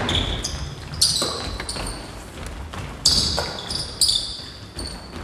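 A basketball bouncing on a hardwood gym floor in a few sharp knocks, with short high sneaker squeaks as players cut and stop on the court.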